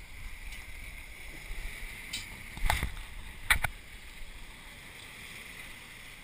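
Steady low water and wind noise on a GoPro mic, with two sharp knocks a little under a second apart near the middle as the camera is handled and turned.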